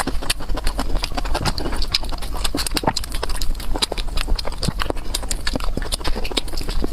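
Close-miked eating: a rapid, irregular run of wet clicks and crunches from chewing and mouth smacking.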